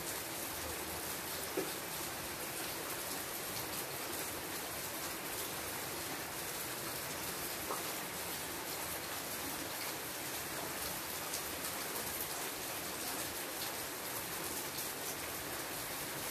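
Steady rain falling on leaves: an even hiss with scattered louder drops, one of them about a second and a half in.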